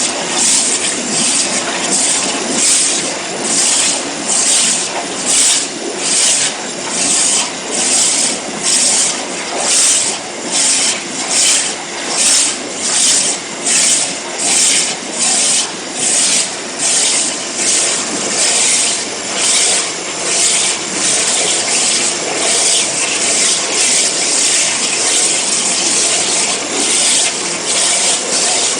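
CNC waterjet cutting machine cutting, a loud rasping hiss that swells and fades about once a second.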